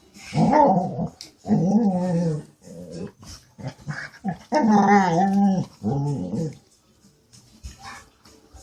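A dog vocalising in reply: a run of about five drawn-out, wavering vocal sounds with a short pause in the middle, dying down after about seven seconds.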